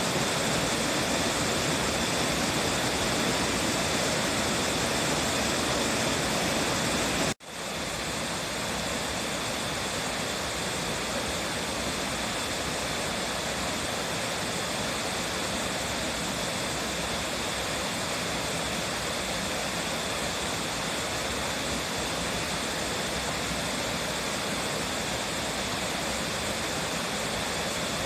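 Waterfall rushing with a steady, even roar of falling water. About seven seconds in it drops out for an instant and returns a little softer.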